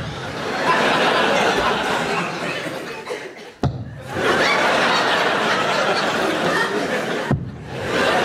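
Theatre audience laughing in long swelling waves, with two brief dips. A short thump comes about three and a half seconds in and another near the end.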